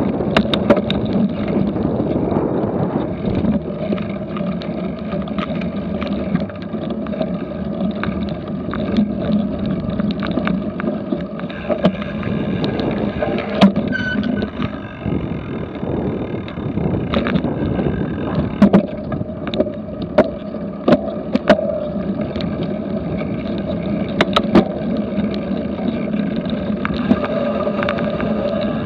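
Cyclocross bike ridden over bumpy grass: a steady rush of wind and tyre noise on the microphone, with frequent sharp knocks and rattles from the bike as it jolts over the ground.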